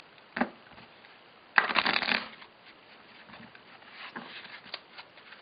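A deck of Bicycle playing cards being shuffled and cut by hand: a brief card sound at the start, a short dense flurry of rapid card clicks about a second and a half in, then lighter scattered taps as the deck is squared and cut.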